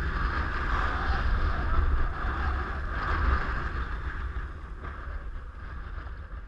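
Wind buffeting a head-mounted action camera's microphone over a steady rush of river rapids, gradually fading out in the second half.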